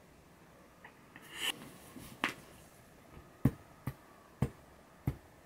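Fingers snapping, a series of about six sharp snaps roughly half a second apart, after a brief rustle.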